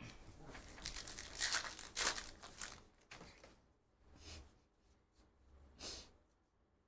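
A Heritage baseball card pack's wrapper being torn open with crinkling for about three seconds, loudest about halfway through. Then two brief, softer rustles as the cards are handled.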